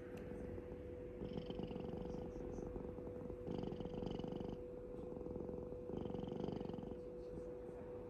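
Calico cat purring close up, the purr swelling and easing about every two and a half seconds as it breathes in and out. A steady hum runs underneath.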